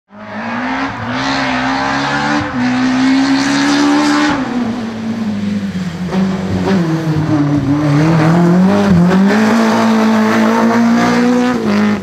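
BMW E30 M3 rally car's four-cylinder engine driven hard at high revs. The pitch climbs, drops sharply about four seconds in, sags low around eight seconds, then climbs again.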